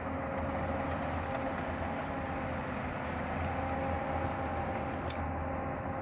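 Steady rumble of distant city traffic, with a faint engine drone that wavers slightly in pitch.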